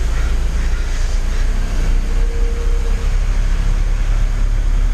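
Steady low rumble of a car engine running, heard from inside the car's cabin.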